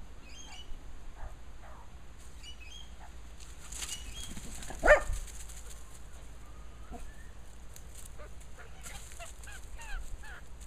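An Australian magpie making short chirping calls, which come thicker in the last couple of seconds, with one louder short call about five seconds in.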